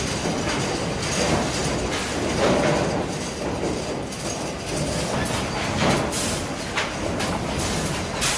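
Wood-processing machinery running with a continuous rattling clatter and irregular sharp knocks, which come thickest about five to six seconds in and again near the end.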